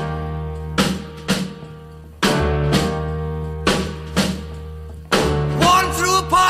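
Rock and roll music: electric guitar and drum chords struck together, each left to ring, with short hits between them. A man starts singing near the end.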